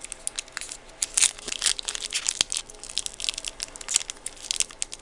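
Foil Yu-Gi-Oh booster pack wrapper crinkling and tearing as it is handled and opened: a rapid, irregular run of sharp crackles.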